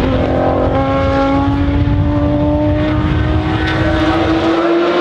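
BMW M1 race car's unsilenced straight-six engine accelerating hard out of a bend, its pitch rising steadily through one gear. The low rumble drops away near the end.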